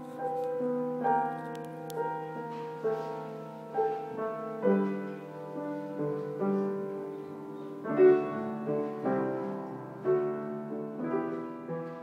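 Background piano music: a slow melody over chords, with new notes struck every half second to a second.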